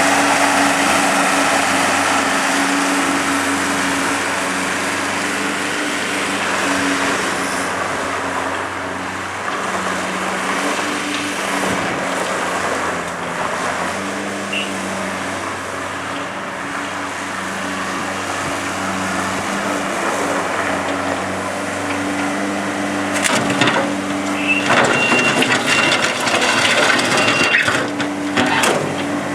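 Komatsu SK815 skid steer loader's diesel engine running steadily as the machine drives and works, its note rising and falling. Near the end comes a spell of clattering metal knocks with a brief high whine.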